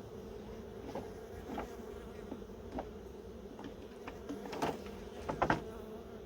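Swarm of honeybees buzzing around an open hive: a steady, even hum, with a few light knocks scattered through it, the loudest about two-thirds of the way in.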